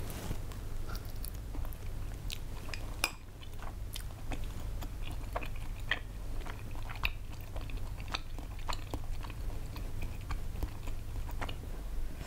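Close-miked chewing of chewy tteokbokki rice cakes in thick sauce: irregular wet, sticky clicks and smacks, over a steady low hum.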